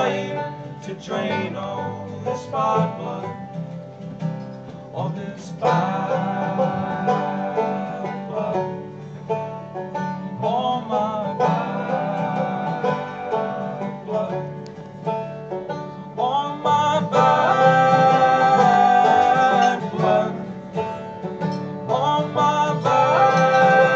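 Live acoustic band playing an instrumental passage on picked guitars. It swells louder about 17 seconds in, with long held notes over the picking.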